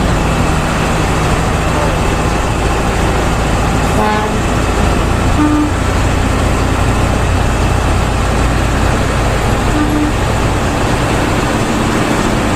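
Bus running along a highway: a steady engine and road rumble, with a few short horn toots, the first and fullest about four seconds in and two shorter ones later.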